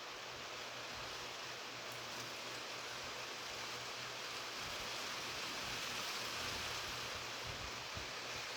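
Steady rain falling, a continuous even hiss that swells slightly about halfway through.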